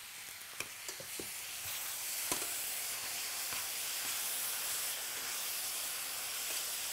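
Green beans and potatoes sizzling in a hot pan with peanut sauce. The sizzle swells about a second and a half in and then holds steady, with a few sharp clicks against the pan in the first couple of seconds.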